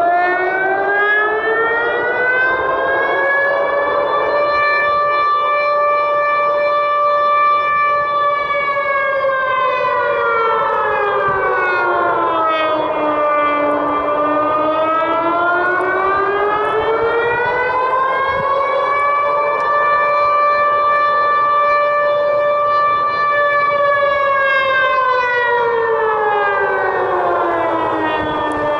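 Civil defence siren wailing: its pitch rises slowly over about four seconds, holds for several seconds, then falls slowly, twice over, with a faint steady rumble underneath.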